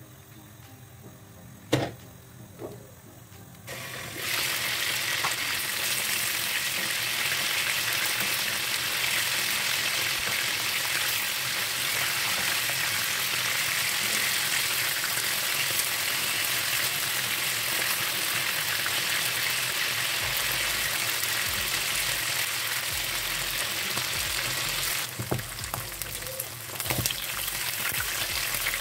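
Chicken wings frying in hot oil in a nonstick pan: a loud, steady sizzle that starts abruptly about four seconds in, after a quieter opening with one sharp knock. Near the end a few clicks and scrapes of a utensil stirring the wings in the pan break into the sizzle.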